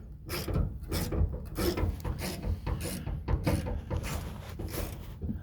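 Hand-tool work on the truck's corroded fuel lines: irregular metallic clicks and scrapes, a few a second.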